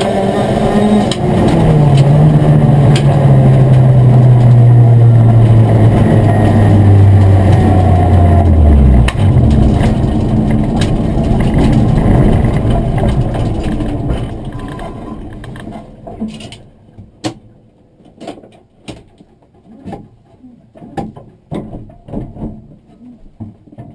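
Inside an Opel Kadett GSI 16V rally car, the 16-valve four-cylinder engine runs loud with its note slowly sinking, then dies about nine seconds in: the car has broken down on the stage. Tyre and gravel noise carries on as the car coasts, fading out by about sixteen seconds, followed by scattered clicks and knocks in the stopped car.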